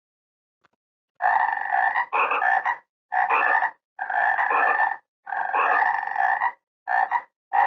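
Frog croaking in a series of about seven rapidly pulsed calls, each lasting roughly half a second to a second, with short gaps between them.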